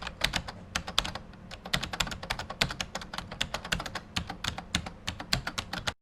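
A rapid, irregular run of sharp clicks, several a second, that cuts off suddenly at the end.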